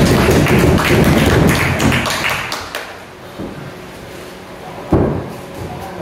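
Pro-wrestling ring action: a loud flurry of slaps, knocks and thuds for the first couple of seconds, then quieter, and one heavy thud about five seconds in, a body landing on the ring mat.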